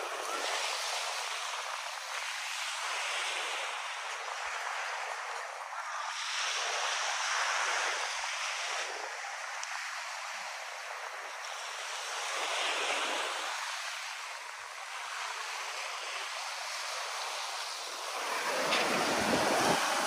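Small waves breaking and washing up on a sandy beach: a steady hiss of surf that swells and fades every few seconds.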